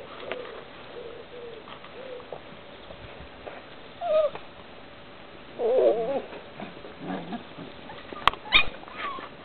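Puppies whining and squealing in a few short, wavering high-pitched calls, the loudest and longest about six seconds in, with a sharp click shortly before the end.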